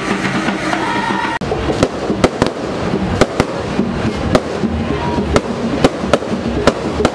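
Music for about the first second and a half, then a sudden switch to fireworks going off: a run of sharp bangs and cracks, roughly two a second, over a continuous crackling hiss.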